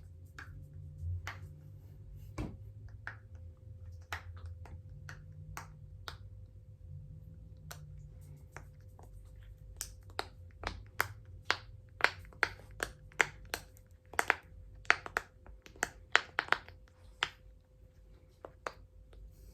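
Silicone push-pop fidget (poppet) having its bubbles pressed through one after another, each giving a short sharp pop. The pops are sparse at first and come faster and louder from about halfway through.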